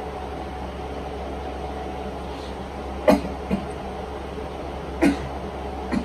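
A man's short fake sneezes: two sharp bursts about two seconds apart, each followed by a softer catch of breath. A steady low hum runs underneath.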